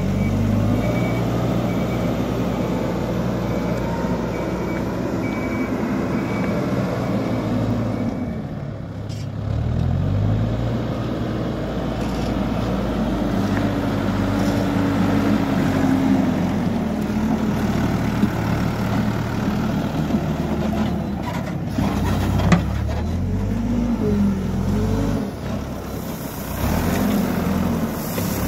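Hidromek backhoe loader's diesel engine running under load, revving up and dropping back as it scoops and carries gravel. A reversing alarm beeps steadily for the first few seconds, and near the end there is a hiss of gravel pouring out of the raised front bucket.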